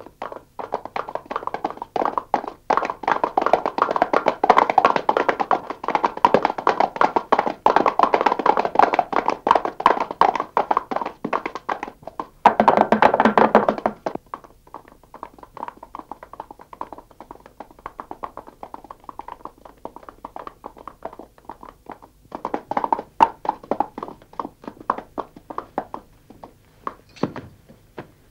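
Clatter of many horses' hooves: dense and loud for about the first half, heaviest just before it breaks off, then thinner and scattered, with a short louder flurry later on.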